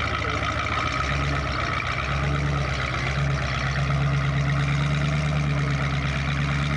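Engine of a modified Range Rover off-road trial car running under load as it crawls up a rock. About two seconds in, the engine note rises slightly and grows stronger as the throttle is opened.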